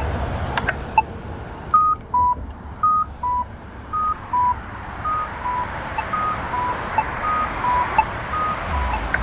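Polara iNS accessible pedestrian signal at a crosswalk, ticking its locator tone about once a second. From about two seconds in, it adds short electronic beeps that alternate high and low in a steady repeating two-note pattern.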